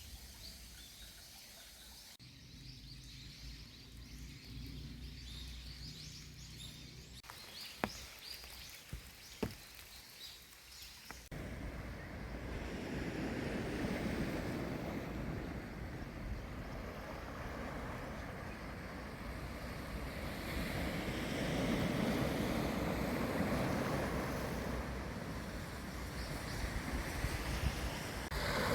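Quiet outdoor ambience with faint bird chirps and two sharp clicks, then from about eleven seconds in, sea surf and wind noise that swell and ease.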